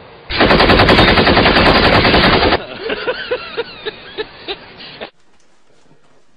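A loud, rapid string of bangs like machine-gun fire for about two seconds, then a few seconds of scattered single sharp bangs, cutting off suddenly about five seconds in.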